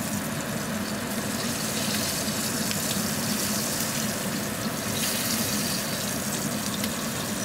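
Trout fillet sizzling skin side down in hot fat in a cast-iron skillet, a loud, steady hiss.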